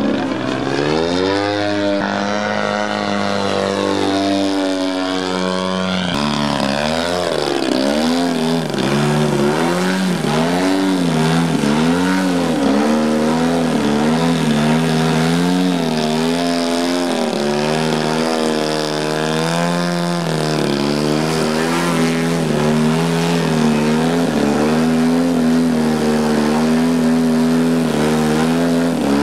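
Radio-controlled aerobatic model airplane's engine and propeller, the pitch rising and falling constantly as the throttle is worked. About six seconds in the pitch drops sharply, then keeps wavering up and down in quick swings while the plane hangs nose-up in a hover.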